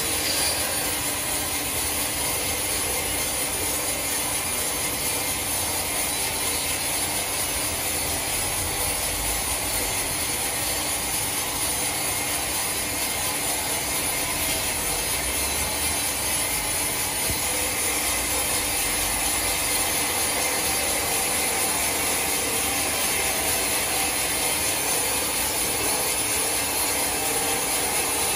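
Large horizontal band sawmill cutting lengthwise through a giant log: a steady, unbroken noise of the blade running through the wood, with a few faint steady tones from the mill's motors and wheels.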